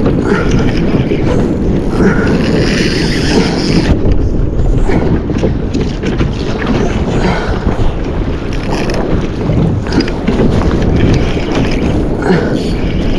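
Wind buffeting the microphone on a kayak at sea, a loud steady rumble with a few faint knocks from the boat.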